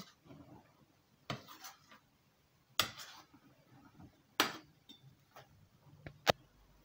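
Metal spoon clinking against a stainless steel pot while stirring nectarines in boiling syrup: several sharp clinks, roughly one every one and a half seconds.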